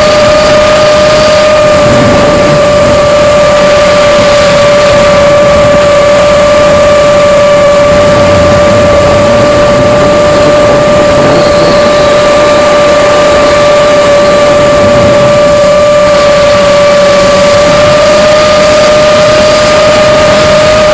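Motors and propellers of a 5-inch FPV quadcopter, whining loudly at a nearly steady pitch with only slight dips, over a rushing noise, picked up by the camera mounted on the drone.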